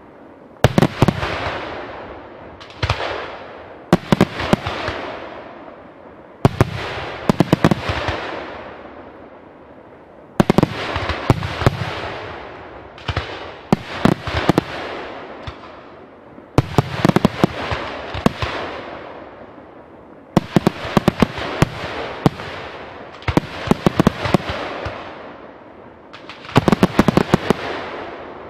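Fireworks display: shells bursting in quick volleys of sharp bangs every two to four seconds, each volley trailing off in a long, echoing rumble.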